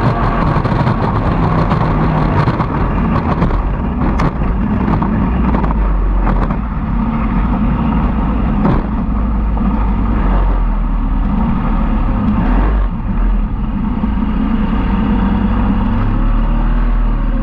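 Evinrude two-stroke racing outboard running at high speed, heard from onboard with wind and water rushing past. A few sharp knocks of the hull on the chop stand out, at about 4, 6.5 and 9 seconds.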